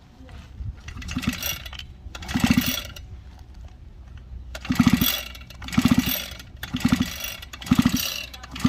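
Grass cutter's small engine being pull-started again and again: a short burst of cranking about once a second that does not catch into a steady run.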